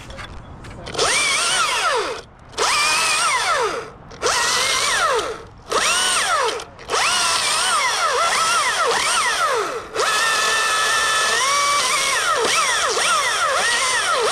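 Chainsaw cutting in the tree, running in a string of bursts with short pauses between them, its pitch rising and falling over and over as it revs and slows under load. It starts about a second in.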